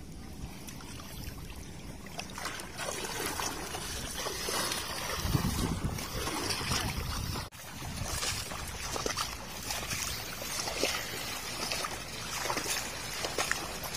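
Pond water splashing, sloshing and trickling in irregular bursts as people wade and work in it catching fish.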